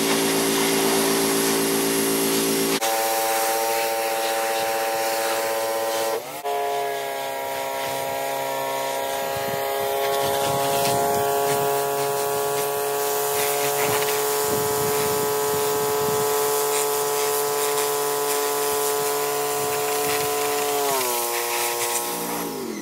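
Electric Sun Joe pressure washer running, its motor giving a steady whine over the hiss of the spray hitting the wooden slats of a crate. The whine jumps in pitch about three and six seconds in, then falls near the end as the motor slows.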